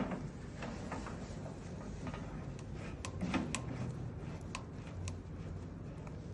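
Small metal parts of a flow control valve kit clicking and tapping together as they are handled and fitted, about a dozen scattered light clicks over a low steady hum.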